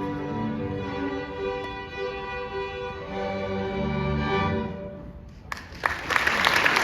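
Middle school string orchestra playing sustained closing chords that fade away, then the audience breaks into applause about five and a half seconds in.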